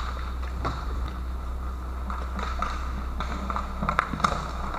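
Scattered sharp clacks of hockey sticks and puck on the plastic floor of an inline hockey rink, with a few clustered near the end, over a steady low hum.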